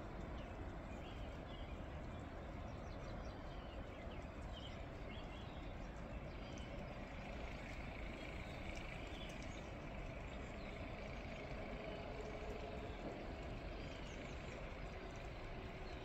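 Steady outdoor snowstorm ambience: an even hiss with a faint drone of distant traffic and scattered faint bird chirps.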